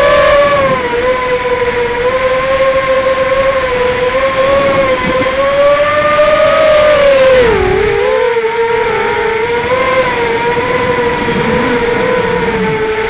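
Four brushless motors of an Emax 250 racing quadcopter (Sunnysky 2204 2300kv) spinning 5040 props, heard from the onboard camera: a steady buzzing whine that wavers in pitch with the throttle. It drops sharply about seven and a half seconds in, as the throttle is chopped, then picks back up.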